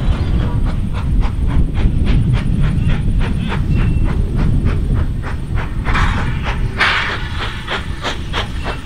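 Hunslet tank steam locomotive working along the line, its exhaust beating steadily about four times a second over a low rumble, with two short bursts of steam hiss about six and seven seconds in.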